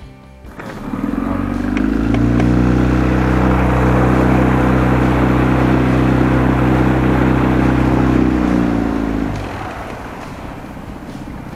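Small outboard motor on an inflatable boat speeding up, its pitch rising over the first couple of seconds, then running steady and loud at speed before dying down about nine seconds in, with water rushing past the hull.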